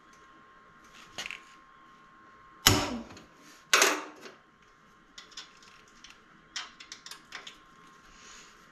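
Objects being handled: two sharp knocks about three seconds in, then a scatter of light clicks and taps, over a faint steady high hum.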